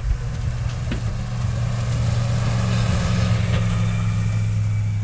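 A vehicle engine running steadily with a low hum, over a rushing hiss of snow being thrown up.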